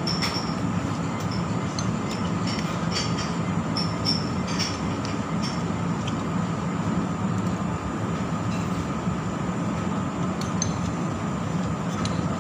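Eating chicken noodle soup with a spoon: small sips, noodle slurps and light clicks, over a steady mechanical hum.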